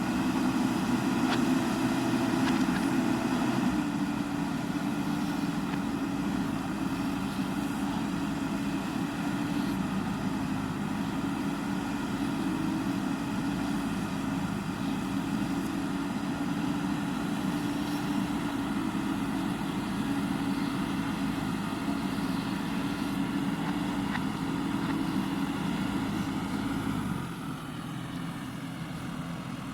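JCB backhoe loader's diesel engine running steadily. Near the end its note drops lower and quieter as the throttle eases off.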